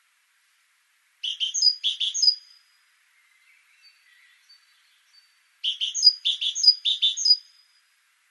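Great tit singing: two phrases of quickly repeated high notes, the second longer, with a few faint chirps in the gap between them.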